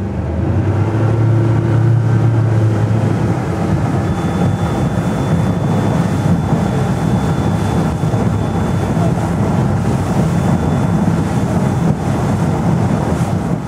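A rigid inflatable boat's engine pulls away and runs at speed, with water rushing past the hull and wind buffeting the microphone. The low engine drone is strongest in the first few seconds as the boat gets going.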